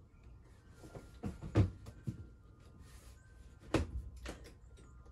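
A handful of knocks and clunks from hands working at the ice-chest incubator and its egg trays, the loudest about a second and a half in and another near the end, over a faint steady hum.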